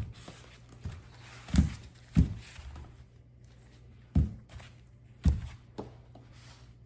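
A handful of dull thumps and lighter knocks at irregular intervals, about five strong ones, over a steady low hum.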